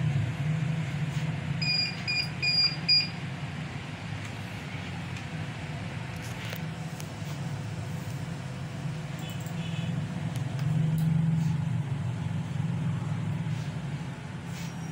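Steady low background rumble, with four short high electronic beeps in quick succession about two seconds in and a fainter beeping near the middle.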